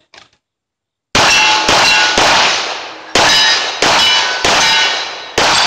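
A pistol fired seven times in quick succession at steel plate targets, each shot followed by the clang and ring of a struck steel plate. The run starts about a second in and spans about four seconds, with a longer gap midway.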